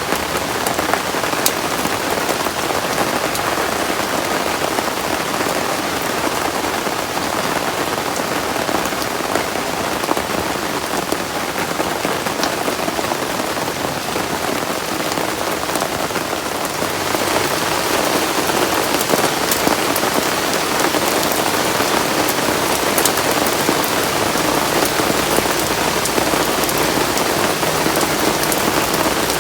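Heavy rain falling steadily, with scattered sharp drop ticks. About halfway through the rain turns louder and brighter.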